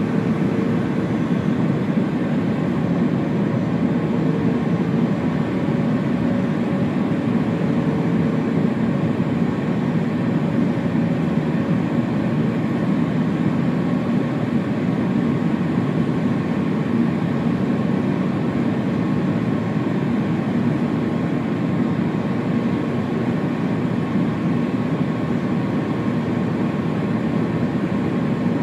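Steady cabin noise inside an Airbus A350-900 airliner after takeoff: an even, deep rumble of engines and airflow, with a faint steady hum above it.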